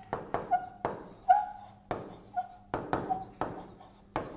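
Stylus writing on an interactive display's screen: a quick string of taps and pen strokes, several with short squeaks.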